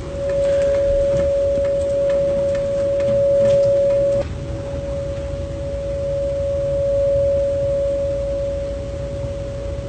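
Siren sounding one steady high tone, dropping a little in level about four seconds in, over a low background rumble.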